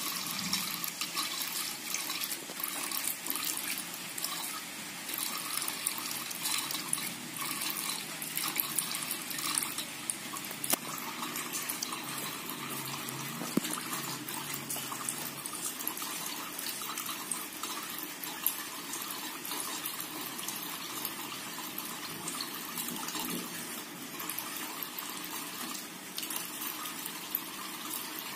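Thin stream of tap water running steadily into a stainless steel sink, splashing on the metal basin. A couple of sharp clicks stand out midway.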